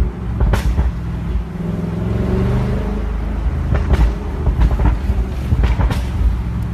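Tuned 730 HP Audi RS6's exhaust rumbling deeply, with sharp crackles and pops: one near the start and a cluster of several a few seconds in. The engine note swells and rises in pitch briefly in the middle.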